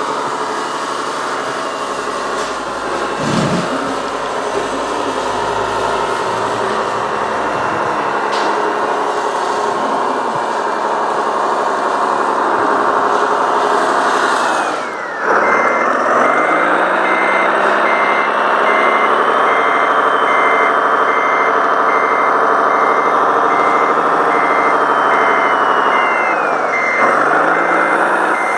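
Radio-controlled model truck with an engine sound module: a diesel engine sound running, whose pitch dips and climbs again about halfway through as a reversing beeper starts pulsing about one and a half times a second, with a faint whine rising and falling above it; near the end the engine note drops and the beeping stops.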